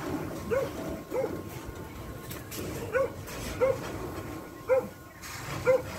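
A dog barking repeatedly: about six short barks, some in quick pairs.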